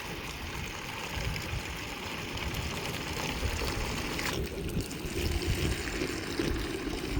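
Water from a garden hose running steadily into a pig's water dish. About four seconds in, the sound turns lower and duller.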